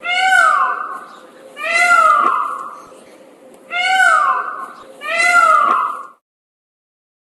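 A cat meowing four times, each meow a short call that slides down in pitch. The meows stop about six seconds in.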